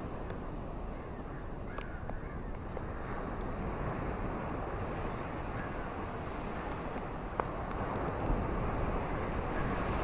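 Rain and wind: a steady rushing noise with a few sharp ticks.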